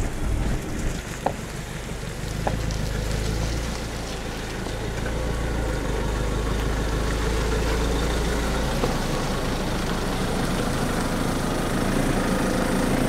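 Motorhome engine running steadily on the road, a deep hum that shifts about nine seconds in.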